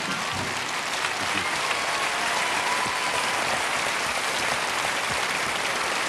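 Studio audience and children on stage applauding steadily.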